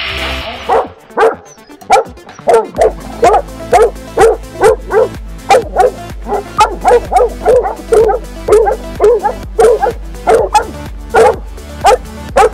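Hunting dogs barking in quick succession, about two barks a second, starting about a second in: dogs baying a wild boar.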